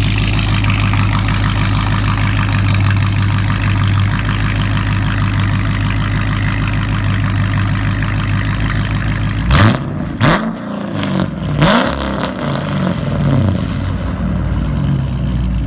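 A straight-piped Dodge Charger Scat Pack's 6.4-litre HEMI V8, with no catalytic converters, resonators or mid mufflers, running loud and steady. About ten seconds in, the engine is revved in a few quick blips, the pitch rising and falling.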